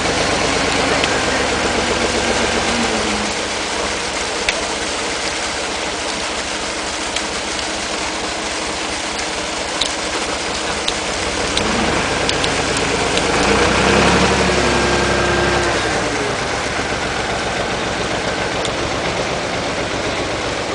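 An engine running steadily under a constant splashing of water as carp thrash in a net. From about 12 to 16 seconds in it runs harder and louder while the crane lifts the loaded basket of fish, with a falling whine as it eases off.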